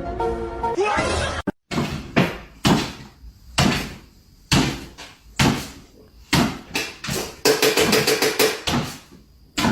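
Music ends about a second in, and after a brief cut come repeated sharp knocks or bangs, roughly one a second, each ringing briefly.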